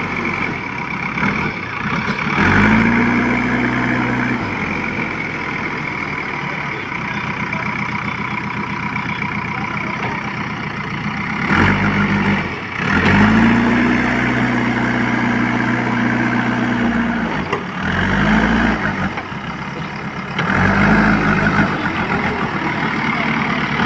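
Diesel engine of a JCB 3DX backhoe loader idling and revving up several times, each time rising in pitch, holding for one to four seconds, then dropping back to idle, as the machine works soil.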